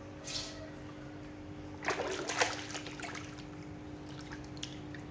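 Water splashing as plastic toy animals are washed by hand, with a short cluster of splashes about two seconds in.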